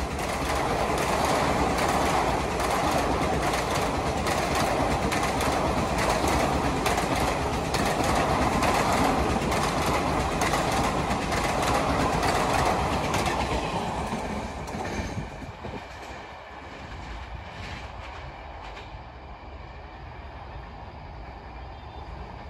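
Coaches of a Garib Rath express passing close by at speed: a loud rush of wheel and rail noise with rapid, regular clickety-clack over the rail joints. About two thirds of the way through the sound drops away as the last coach passes, leaving a fainter receding clatter.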